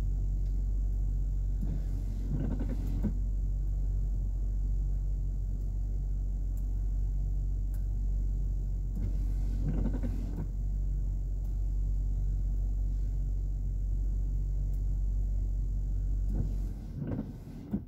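Toyota Camry SE idling, heard from inside the cabin as a steady low hum, with a few soft rustling swells. The hum drops away sharply near the end.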